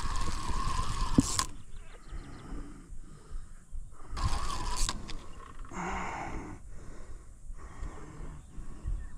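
Carp fishing reel running in two bursts of about a second each, during the fight with a hard-pulling hooked carp.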